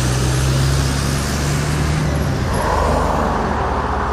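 Road traffic: cars driving past on a city street, a steady rush of tyres and engines, with a low engine hum in the first half.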